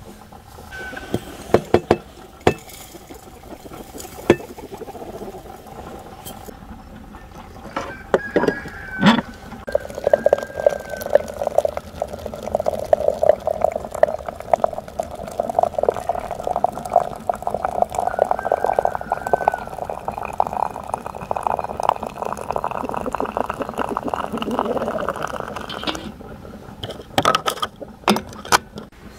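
Water running from a samovar tap into a glass teapot of tea leaves and chamomile for about sixteen seconds, its pitch rising slowly as the pot fills. A few sharp clinks of glass and metal come before the pour and again just after it stops.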